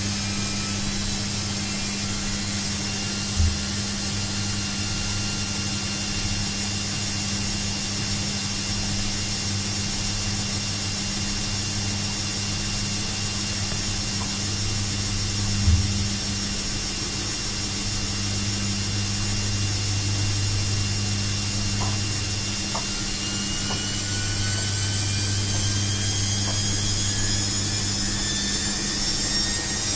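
Washing machine running: a steady low motor hum with hiss, two brief low thumps about three and sixteen seconds in, and a whine that rises slowly in pitch over the last several seconds.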